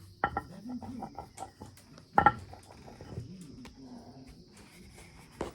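A steady high-pitched insect chirring, like crickets, runs throughout. Two sharp knocks sound about a quarter second and two seconds in, the second the loudest, with faint voices in between.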